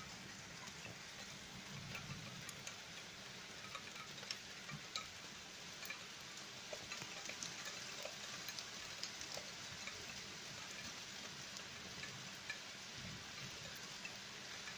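Faint steady rain with scattered drops ticking close by, from a thunderstorm.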